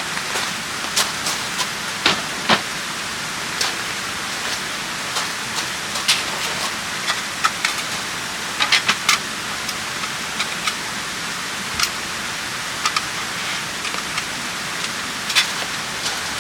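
Steady rain falling, with louder drops ticking sharply onto a surface at irregular moments.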